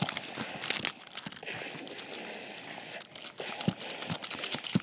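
Close-up handling noise: rustling and scraping with scattered clicks and taps as a plastic toy figure and the camera are rubbed and moved against a leather couch cushion.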